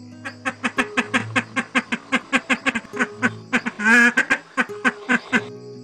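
An animal calling in a rapid run of short, quack-like notes, about five or six a second, with one louder, longer wavering call about four seconds in.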